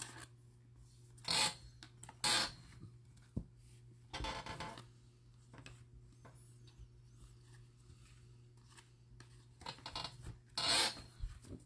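Trading cards and a thin plastic card sleeve rubbing and rustling as a card is slid into the sleeve and the next cards are handled and slid across a table, in several short brushes with pauses between, over a faint steady hum.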